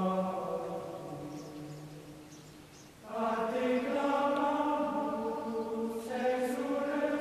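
Choral chant music: voices singing long held notes. One phrase fades out about three seconds in and a new phrase begins.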